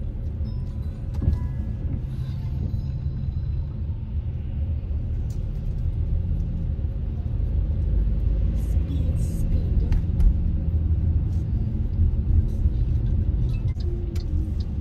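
Steady low rumble of a car driving, heard from inside the cabin, with music playing faintly over it.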